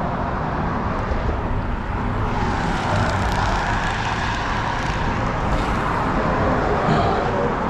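Steady road traffic noise from vehicles crossing the bridge, with a low rumble underneath, a little fuller in the middle as traffic passes.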